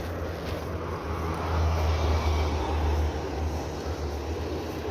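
Motor vehicle noise: a steady low engine hum with road and wind noise that swells about one and a half seconds in and eases off toward the end.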